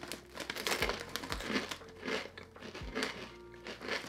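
A foil Ruffles potato chip bag crinkling as it is handled, with chips being crunched in the mouth in short, irregular bursts, over background music.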